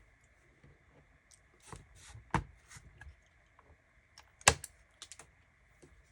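Small clicks and scrapes of a thin flathead screwdriver prying the plastic screw covers out of a Lenovo X220 laptop's screen bezel, with a sharper click about four and a half seconds in.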